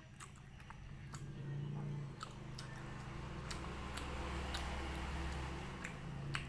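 Close-up chewing of chewy beef-skin kikil: wet mouth clicks and smacks, thickening in the middle as the mouthful is worked.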